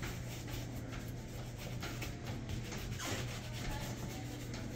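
Shoe leather being rubbed during a shine: a run of quick, even rubbing strokes over the polished shoe, over a steady low hum.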